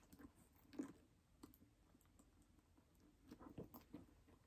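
Faint clicks and rustling from hands clipping a key pouch's clasp onto a handbag's inner D-ring. There is a single click about a second in and a small cluster of them near the end.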